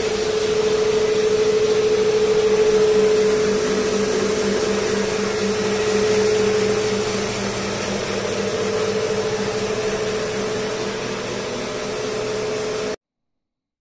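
Rotowash floor scrubber running as it scrubs a travertine tile floor: a steady motor hum with a clear mid-pitched tone, cutting off suddenly near the end.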